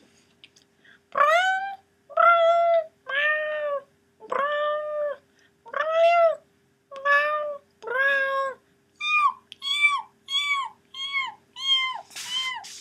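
A person imitating a cat with her voice: about seven drawn-out meows, then a quicker run of shorter, higher meows that each drop in pitch at the end.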